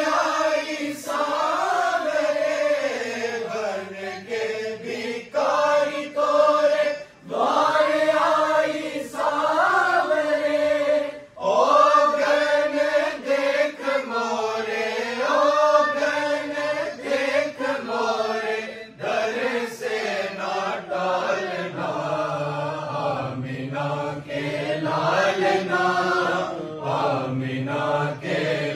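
A group of boys' and men's voices chanting a durood (salutation on the Prophet) together in unison, an unaccompanied devotional melody sung through a microphone.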